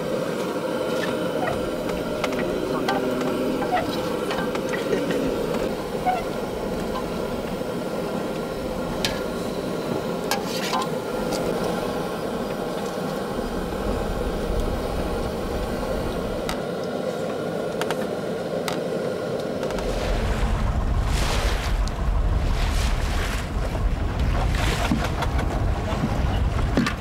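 Steady drone of the fishing boat's engine, heard from inside the cabin. About 20 seconds in it gives way to wind buffeting the microphone and waves splashing against the hull on the open deck.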